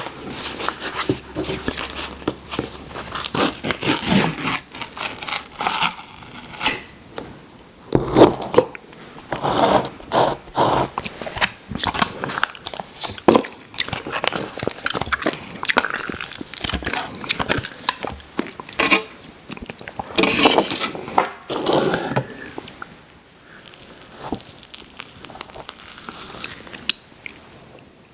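Close-miked eating of ice cream, an eating-show mouth-sounds recording: a dense, irregular run of sharp clicks and short wet mouth and handling noises.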